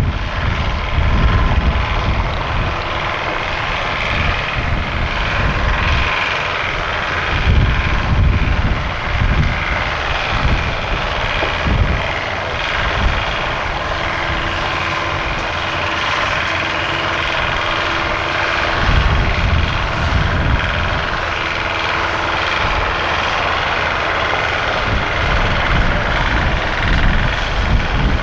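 A large engine running steadily, with wind buffeting the microphone in gusts.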